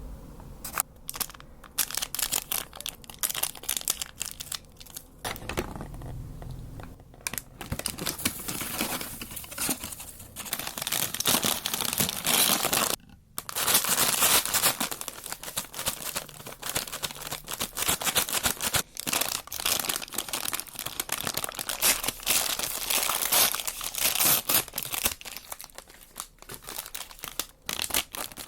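Paper fast-food packaging crinkling and rustling close to the microphone, almost without pause, with a brief break about thirteen seconds in.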